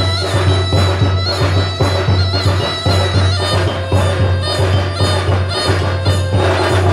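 Traditional Minangkabau ceremonial music: a wind instrument holding a sustained, wavering melody over a steady drum beat of about two strokes a second.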